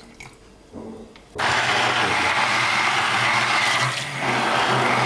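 Hand-held stick blender switched on about a second and a half in, running steadily with a constant high motor whine as it blends a thick curd, yogurt and gelatin mixture in a tall plastic jug.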